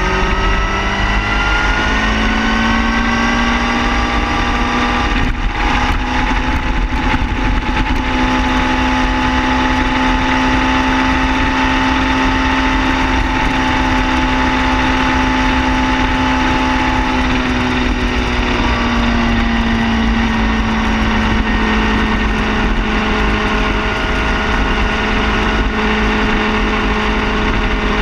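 Car engine running at a steady speed, its pitch rising over the first couple of seconds, holding, then dropping a little about two-thirds of the way through, over a constant low rumble.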